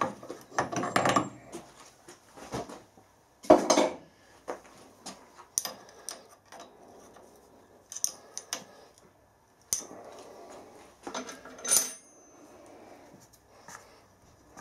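Irregular metallic clinks, taps and knocks of hand tools on a metal lathe's compound slide as it is adjusted to a taper angle, the loudest knocks about three and a half seconds in and near twelve seconds in.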